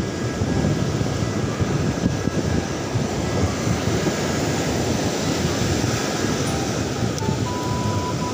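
Wind rumbling and buffeting on the microphone over the steady wash of breaking surf.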